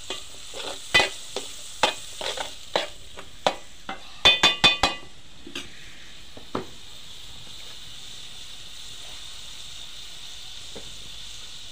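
A steel spoon stirring fish and onions in a metal pot, clinking and scraping against it, with a quick cluster of ringing metal strikes about four seconds in. After that, a steady sizzle of the onions and fish frying in oil.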